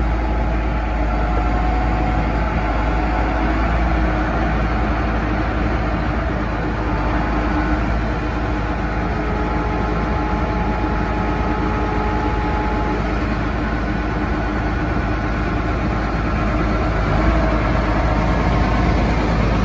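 Case IH MX240 tractor's 227 hp CDC diesel engine idling steadily.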